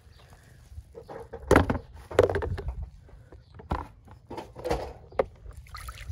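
Toy monster truck knocking and clattering against a hard plastic tub: a handful of separate knocks and rattles, the loudest about one and a half to two and a half seconds in.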